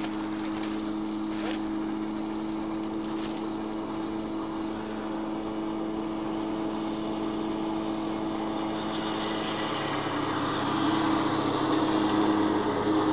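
A rigid inflatable boat's engine running steadily at speed, growing louder as the boat closes in. A rising rush of water and spray joins in during the last few seconds.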